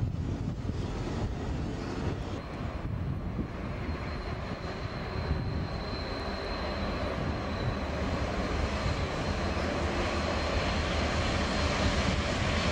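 Clyde-EMD streamlined diesel locomotive hauling a passenger train, its engine rumbling steadily and growing louder as it draws near, with a thin high whine for a few seconds midway.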